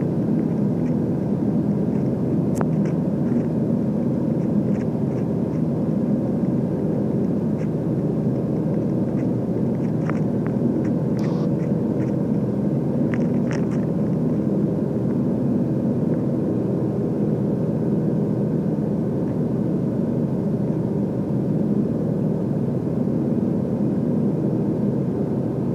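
Light aircraft's piston engine and propeller droning steadily in flight, heard inside the cockpit, with a few faint clicks.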